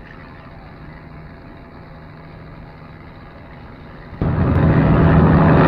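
A ship's engine drone with a steady low hum under a wash of noise; about four seconds in a much louder rushing noise cuts in suddenly and holds.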